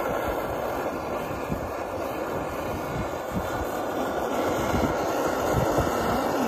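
Handheld butane blowtorch flame running with a steady hiss, played over sugar-sprinkled banana halves to caramelize the sugar.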